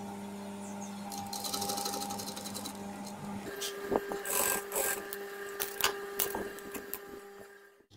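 Sewing machine running, with a steady motor hum and a short run of fast, even stitching in the first few seconds. Then fabric rustles and light clicks as the chiffon is handled at the presser foot, while the hum carries on at a higher pitch until it cuts off suddenly just before the end.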